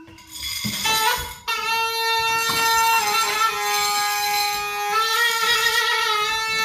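A reedy wind instrument holding long notes, coming in about a second and a half in after a few light knocks. It steps down in pitch about halfway through and back up near the end.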